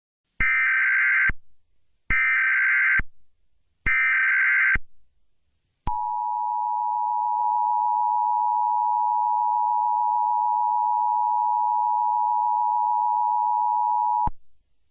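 Emergency Alert System Required Monthly Test alert: three short, identical bursts of SAME header data, each a harsh buzzing screech, about a second apart, then the EAS two-tone attention signal, a steady dual tone held for about eight seconds before cutting off abruptly.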